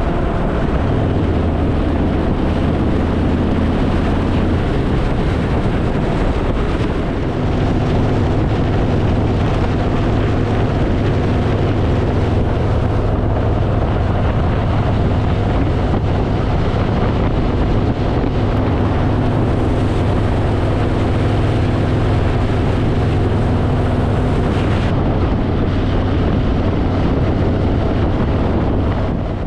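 Harley-Davidson Fat Boy's V-twin engine running at a steady cruise, with heavy wind noise buffeting the microphone.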